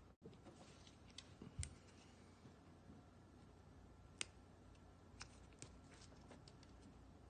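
Faint, sharp clicks of side-cutting pliers snipping the thin insulated wires of a stripped phone-charger cable, mixed with light handling knocks. The clicks come scattered, the clearest about one and a half and four seconds in, with several smaller ones near the end.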